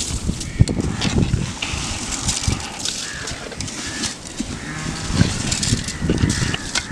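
Rice dropped by hand into a large aluminium pot of boiling biryani masala, the liquid bubbling and crackling as the grains go in.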